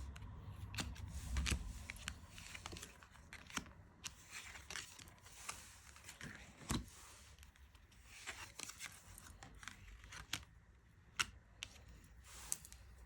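Tarot cards and their boxes being handled: irregular rustling and sharp papery clicks of card stock, with a few louder snaps about a second and a half in, near seven seconds and near eleven seconds.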